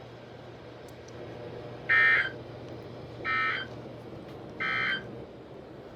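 Three short, buzzy data-tone bursts about 1.3 seconds apart, the first the loudest: the SAME (Emergency Alert System) end-of-message code on NOAA Weather Radio, marking the end of a severe thunderstorm warning broadcast.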